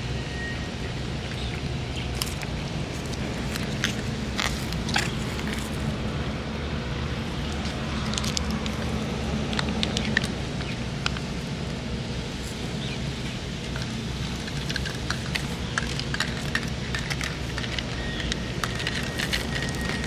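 Cats chewing and licking wet cat food from metal dishes close up: irregular wet clicks and smacks over a steady low background rumble.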